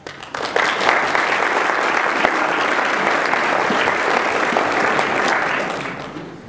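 Audience applauding: many hands clapping at once, starting shortly after the start and fading out near the end.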